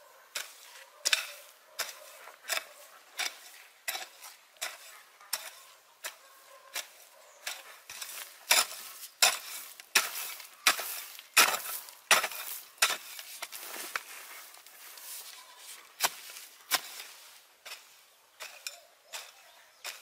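Long-handled garden hoe chopping into dry soil and scraping up grass weeds, a steady rhythm of strikes a little under a second apart, with a short pause near the end.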